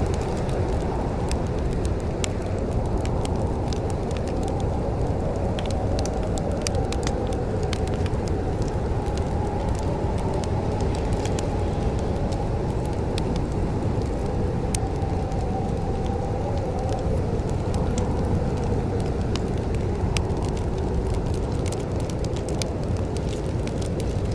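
Wood fire in a fireplace crackling: scattered sharp pops and snaps, some in quick clusters, over a steady low rush.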